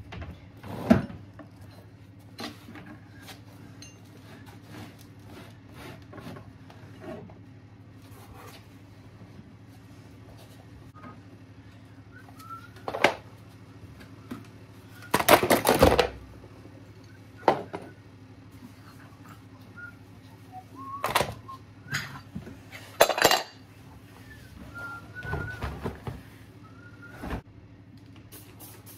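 Household objects being handled and set down: scattered knocks and clatters, with a longer rustling clatter about fifteen seconds in and a few more short clatters near the end.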